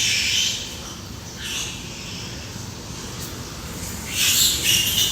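Pigs squealing in three high-pitched cries: one at the start, a short one about a second and a half in, and a longer one near the end.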